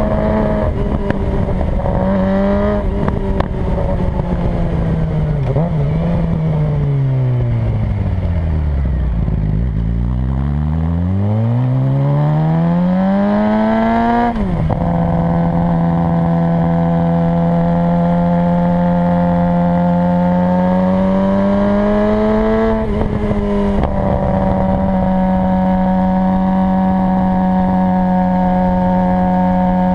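A 2007 Suzuki GSX-R 600's inline-four engine with a short aftermarket exhaust, heard from the bike while riding. The revs fall away steadily as the bike slows, then climb hard to a gear change with a sudden drop in pitch. It then settles into steady cruising, rising slowly to one more gear change and holding steady after it.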